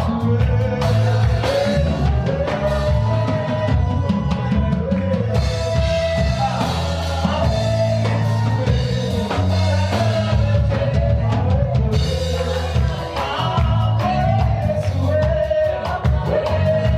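Live worship band music: a singer over bass guitar and drum kit with a steady beat.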